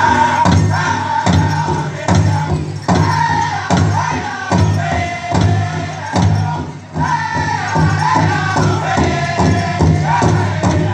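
Powwow drum group singing in high voices over a large powwow drum beaten in a steady, even beat.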